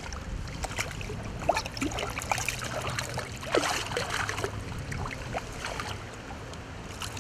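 Shallow river water sloshing, trickling and dripping as hands work in a landing net and release a chub, with irregular small splashes and gurgles over the steady noise of the flowing river.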